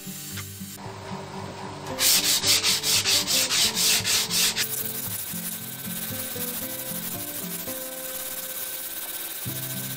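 Hand sanding of a plywood board with a sanding block: quick back-and-forth strokes, about four a second, loud from about two seconds in, then softer steady rubbing for the rest.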